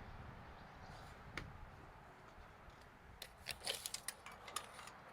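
Light handling noise from hand tools or hardware: a single sharp click about a second and a half in, then a quick run of light clicks and rattles between about three and four and a half seconds in.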